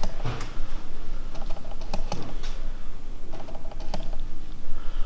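Scattered light clicks and taps at an irregular pace, over a low steady hum.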